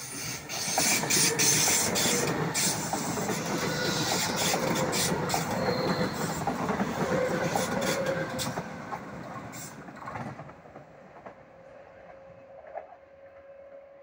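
Renfe Class 446 commuter electric multiple unit, two units coupled, passing close by: a rush of wheel-on-rail noise with quick clicks over the rail joints. It dies away after about ten seconds.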